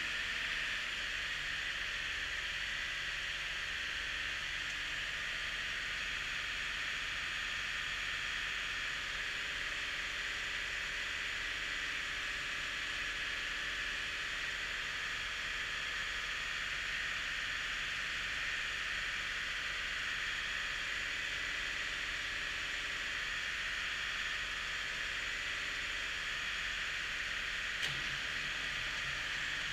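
Ford 7000 tractor's four-cylinder diesel engine running steadily after a cold start, heard as an even hiss-like noise that does not change; a single click near the end.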